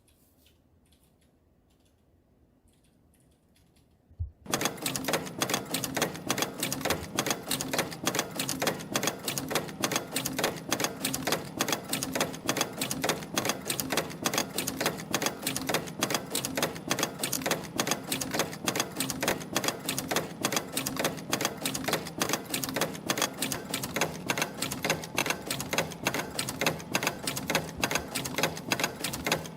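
YHM EF-210 CNC extension spring machine starts running about four seconds in, with a rapid, even mechanical clatter. It is coiling 0.5 mm wire into extension springs and forming German-style hooks.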